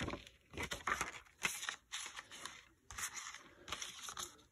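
A paper DVD insert rustling as it is handled against an open plastic DVD case, in short, irregular bursts with a few light clicks.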